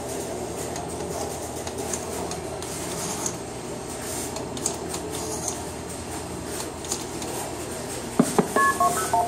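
No. 1 crossbar telephone switch humming with faint relay clicks while a call is dialled on a rotary phone. Near the end comes a fast run of short two-tone multi-frequency (MF) signalling beeps: the originating side of the switch outpulsing the dialled digits over the trunk to the terminating side.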